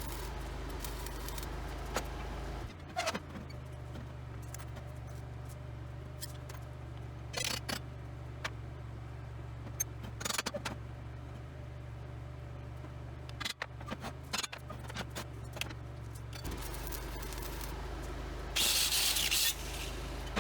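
Metalworking in a shop: scattered metal clinks and scrapes over a steady low electrical hum, then a loud hiss lasting about a second near the end.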